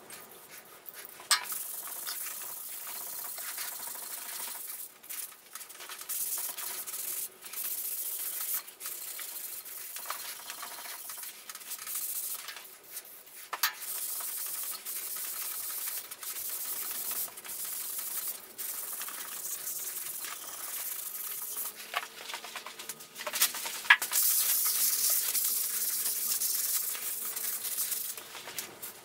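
An abrasive pad scrubbing a rusty, oiled T-slot metal table by hand: a rough, hissing rub that comes in uneven strokes and stretches, broken by a few sharp clicks.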